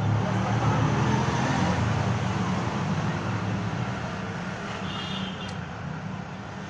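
Road traffic: a motor vehicle's low rumble swells near the start and slowly eases off over a steady noisy background, with a brief high tonal sound about five seconds in.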